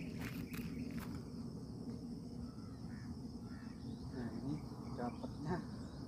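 A Javan myna caught in a mist net giving several short, harsh squawks in the second half, after a few light footsteps in the first second.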